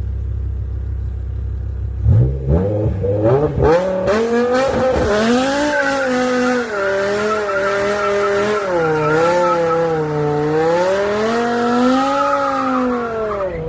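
BMW M5 engine idling low, then revving up about two seconds in and held at high revs, its pitch swinging up and down as the throttle is worked, with tyres squealing. It cuts off just at the end.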